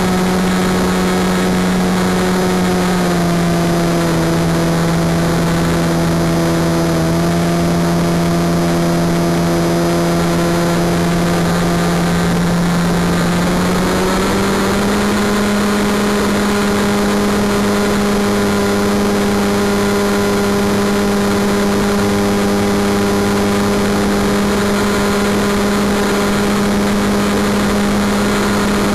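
Motor and propeller of a Wing Dragon 4 RC plane droning steadily in flight. The pitch drops slightly about three seconds in and rises again around fourteen seconds in, as the throttle changes.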